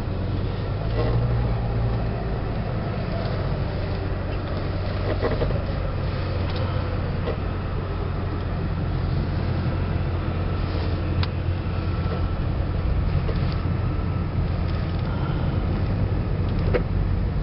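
A motor vehicle driving: a steady low drone of engine and road noise, with a few faint clicks.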